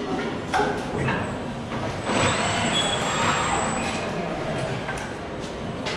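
Machinery of an automated assembly cell: a steady mechanical background with a few knocks in the first second, and a hissing rush that starts about two seconds in and lasts about a second and a half.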